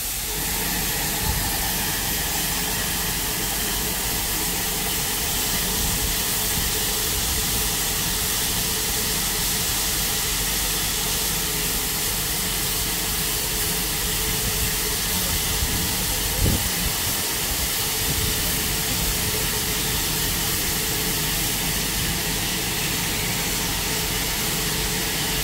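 Southern Railway Battle of Britain class steam locomotive 34067 'Tangmere' giving off a steady hiss of escaping steam, with no exhaust beats. There is one short knock about two-thirds of the way through.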